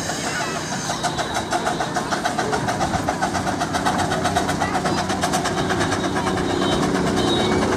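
Small narrow-gauge steam locomotive working a passenger train, its exhaust giving rapid, even chuffs.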